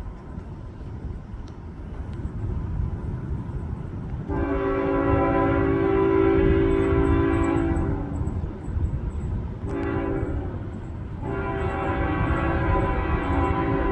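Air horn of a CN freight locomotive sounding the end of the grade-crossing signal. A long blast starts about four seconds in, a short blast comes near ten seconds, and a final long blast is still going at the end. Under it runs the low, steady rumble of the approaching train.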